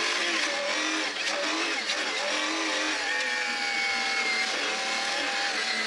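Mercedes CLK GTR Roadster's 6.9-litre V12 running at low, varying revs, heard from inside the open cockpit while driving slowly. The engine note wavers up and down with the throttle, then holds steadier for a couple of seconds in the middle.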